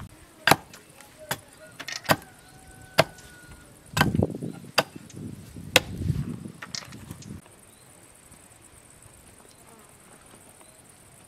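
Hand axe chopping a wooden pole against a tree-stump chopping block, trimming off shavings: about seven sharp strikes, roughly one a second, which stop a little past halfway. A faint steady high hiss remains afterwards.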